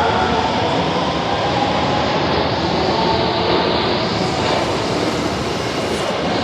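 Osaka Metro Tanimachi Line subway train running along the platform: loud, steady running noise.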